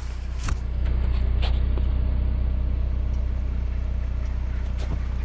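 A Jeep's engine running at a low, steady pitch while driving off-road in snow, growing a little louder about a second in. A few sharp knocks come through, two of them early.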